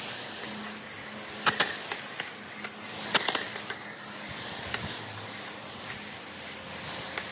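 Chapin hose-end sprayer spraying water mixed with liquid organic fertilizer onto a lawn: a steady hiss with a few sharp clicks, stopping abruptly at the end.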